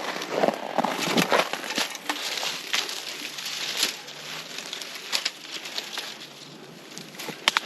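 Footsteps crunching through frozen, crusted snow, an uneven series of crunches that eases off briefly before a couple of sharp cracks near the end.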